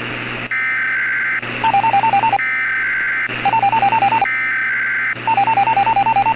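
Weather-radio hiss, then three roughly one-second bursts of Emergency Alert System SAME header data tones: the harsh two-tone digital screech that starts an alert. In the short gaps between the bursts a bright electronic melody of quickly alternating notes plays.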